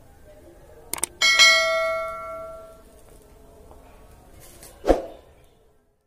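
Subscribe-button animation sound effect: a short click, then a bell ding that rings out and fades over about a second and a half. A single sharp knock comes near the end.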